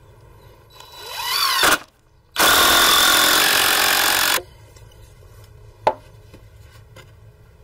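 Cordless power driver sinking a screw into pine framing: the motor whine rises for about a second and stops, then comes a loud two-second burst as the screw is driven home. There is a single sharp knock near six seconds.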